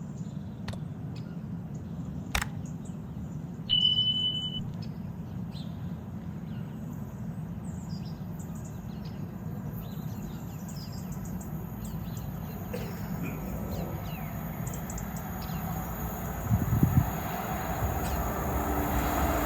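Lineside morning ambience of small birds chirping over a low steady rumble, with one brief steady high tone about four seconds in. Near the end a low rumbling starts to build as a train approaches.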